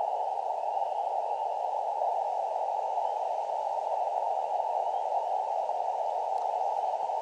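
Elecraft KX2 transceiver's receiver audio on the 40-metre band: a steady hiss of band noise held to a narrow pitch range by the narrow CW filter, with no clear Morse signal standing out.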